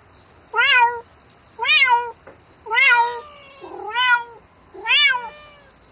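A domestic cat meowing over and over, five calls about a second apart, each rising then falling in pitch: the insistent calling of a cat seeking a mate.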